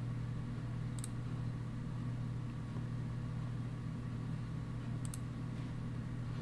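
Steady low hum of room tone with two faint, brief mouse clicks, one about a second in and one about five seconds in.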